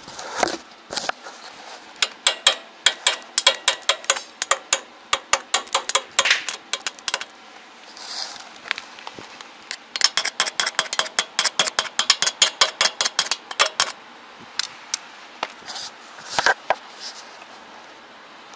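Rapid metallic tapping, about four to five sharp knocks a second, in two long runs with a few single taps near the end.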